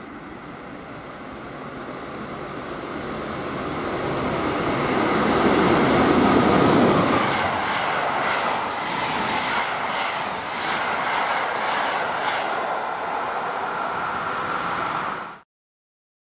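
An EU160 electric locomotive hauling an InterCity passenger train passes through a station. The rumble builds as it approaches and is loudest about six to seven seconds in, as the locomotive goes by. The coaches follow with a run of rhythmic wheel clicks on the rails, and the sound cuts off abruptly near the end.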